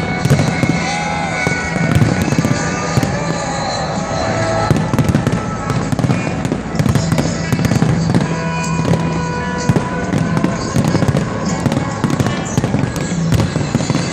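A dense fireworks barrage: many shells bursting at once in a continuous stream of bangs and crackles, with music playing underneath.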